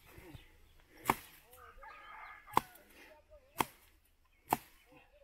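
Four sharp strikes of a long-handled mattock chopping into the trunk of a small tree, about a second apart.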